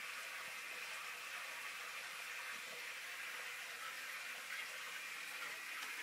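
Water running in a large aquarium, a steady hiss with no breaks.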